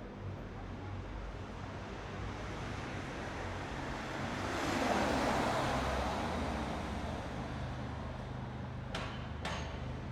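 City street traffic with a steady low rumble; a vehicle passes close, its noise swelling to a peak about halfway through and fading away. Two short clicks near the end.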